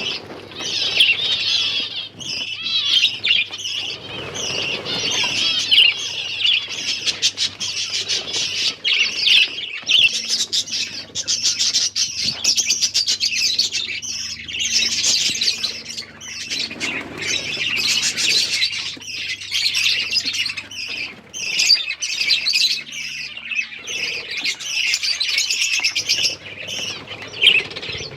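A flock of pet finches chirping continuously in many overlapping short calls, with wing flutters and small clicks among them.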